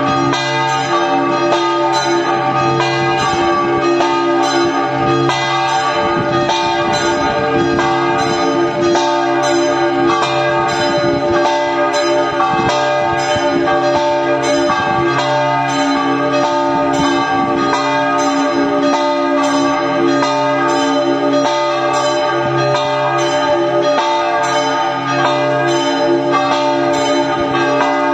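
Church tower bells ringing a festive peal (campane a festa): a quick, unbroken run of strikes, loud, with the tones of the bells ringing on over one another.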